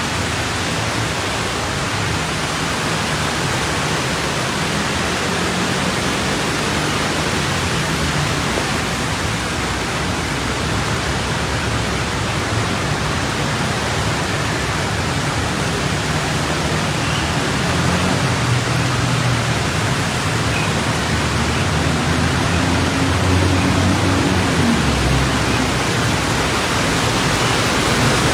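Steady rushing hiss of floodwater churned up by cars driving through a flooded street in rain, with a low hum of engines. Toward the end a city bus passes close, its wheels pushing through the water and the sound getting a little louder.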